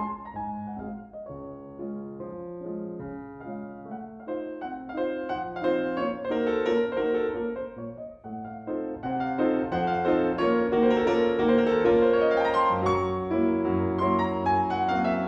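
Solo classical piano played on a concert grand piano: a running passage of many notes, softer at first and growing louder about halfway through.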